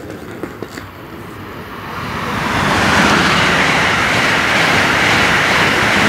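Amtrak Acela Express high-speed electric trainset passing through the station at speed: a rushing roar of wheels and air that builds over about two seconds and then holds loud as the cars go by.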